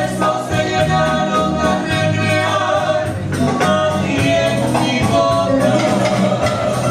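A man and a woman singing with long held notes over instrumental accompaniment.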